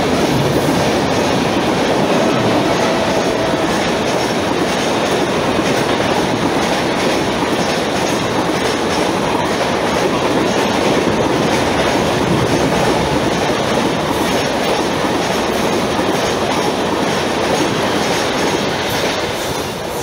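Passenger coaches of an express train running past at speed close to the platform: a steady loud rush of wheel and rail noise with clickety-clack from the rail joints, dropping off slightly near the end as the last coach clears.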